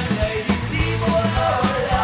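Background music: a song with a steady, fast drum beat and a repeating bass line under a melody.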